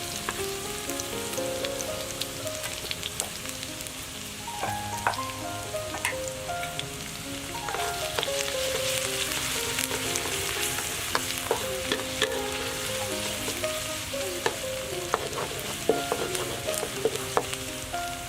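Garlic sizzling in hot oil in a pan, with a steady crackle and sharp clicks as it is stirred with a utensil against the pan. A background music melody plays underneath.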